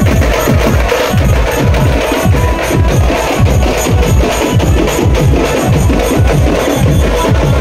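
Loud, fast drumming in a dense, driving rhythm, in the teenmaar style of festival percussion.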